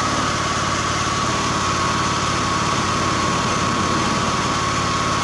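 Small generator engine running steadily on wood gas from a gasifier, with a constant high whine held over its even firing.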